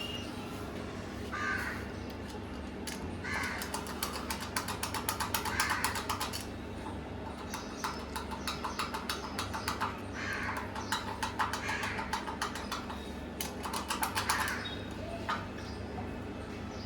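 Crows cawing repeatedly, with two long stretches of rapid, dense clicking or crackling from the gate work.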